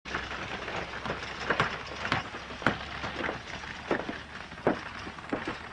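Horse-drawn wooden cart rolling along a dirt road: irregular hoof clops and knocks from the wooden cart, roughly one or two a second, over a steady rumble of the wheels.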